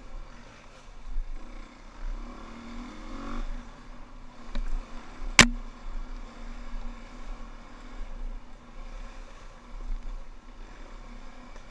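Dirt bike engine running under way, with a brief rise in revs about two to three seconds in. A single sharp knock about five and a half seconds in stands out above the engine.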